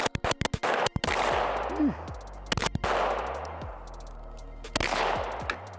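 Glock 17 9mm pistol firing: a rapid string of shots, about six a second, for the first second, then single shots spaced a couple of seconds apart, each with a rolling echo.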